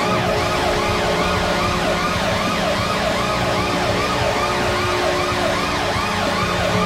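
A siren wail sweeping rapidly up and down, about three times a second, over a steady low hum.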